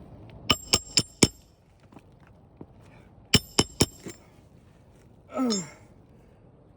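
A hammer striking a steel pry bar with sharp, ringing metal blows, four in quick succession and then three more a couple of seconds later, working roof shingle nails loose. Near the end a short grunt from the worker, falling in pitch.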